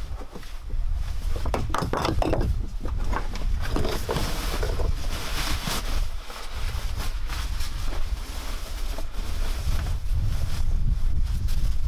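Low, steady rumble of wind on the microphone, with bouts of rustling and scraping of clothing and gear against rock as a person moves about.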